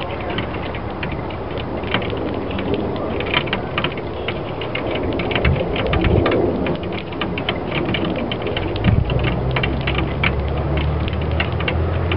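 Sparrows pecking seed off a glass table top: quick, irregular taps that sound like Morse code. A low hum comes in about two-thirds of the way through.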